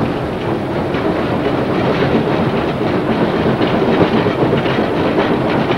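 Steam locomotive running along the line, heard from the footplate inside the cab: a steady, loud rumble of the engine and wheels with irregular rattling.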